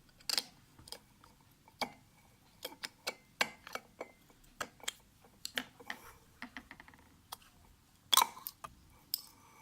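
Irregular sharp clicks and taps of a drink bottle being handled and opened, with one louder click near the end.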